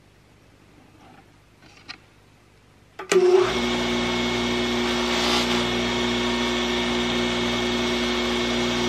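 Electric bench grinder with a buffing wheel switched on about three seconds in, then running at a steady pitch, a motor hum with a hiss over it. Before it starts there are only a few faint handling sounds.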